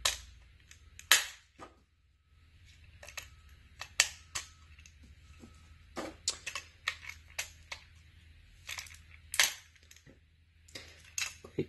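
AA batteries being pressed into a plastic three-cell battery holder: a run of irregular sharp clicks and snaps as the cells are pushed against the holder's contacts and seated, some much louder than others.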